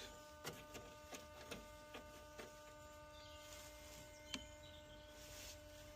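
Near silence: a faint steady hum with a few light clicks, the sharpest about four seconds in.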